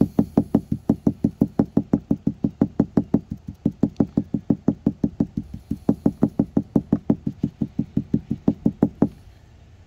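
Rapid, even knocking, about five knocks a second, stopping about nine seconds in.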